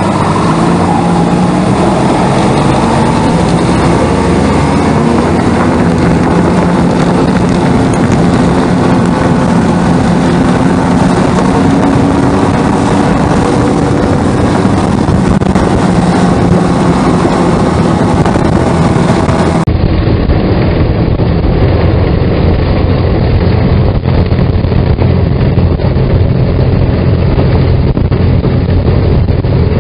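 A vehicle engine running steadily at travelling speed, its pitch drifting only slightly. About twenty seconds in, the sound cuts abruptly to a duller, deeper stretch of the same steady running.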